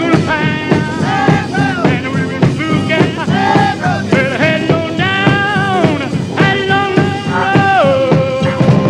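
Upbeat rock music, with a sliding, bending lead melody over a steady beat; the melody settles on one long held note near the end.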